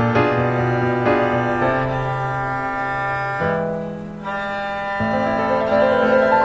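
Background music: slow instrumental with sustained low string notes under piano.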